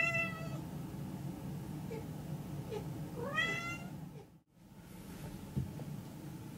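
Domestic cat meowing twice, about three seconds apart: short calls that rise in pitch and then level off, over a steady low hum.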